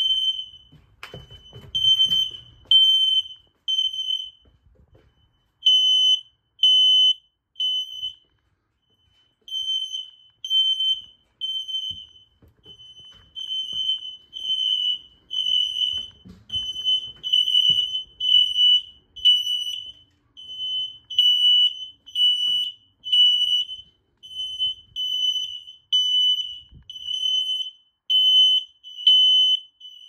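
X-Sense interlinked smoke alarms sounding after smoke test spray set one off: super loud, high-pitched beeps in groups of three with a pause between groups, the temporal-three fire alarm pattern. About halfway through, the groups close up into a near-continuous string of beeps.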